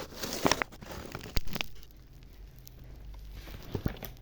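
Things being handled and put away: rustling and several knocks in the first two seconds, the sharpest about a second and a half in, then quieter handling with two light clicks near the end.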